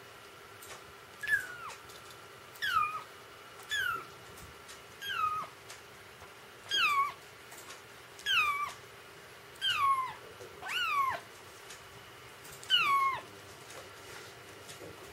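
Kitten mewing, about nine short high calls roughly every second and a half, each falling in pitch.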